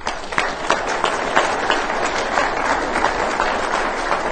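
Audience applauding steadily: many people clapping at once.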